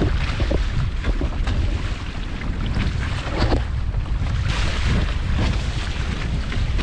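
Wind buffeting the microphone over water rushing and splashing along the hull of a Hobie Adventure Island sailing kayak under way on open sea.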